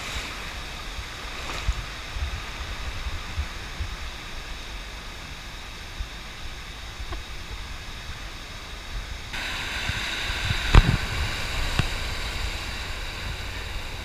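Small surf waves breaking and washing in, a steady rush with low wind rumble on the microphone. A single louder thump comes near the end.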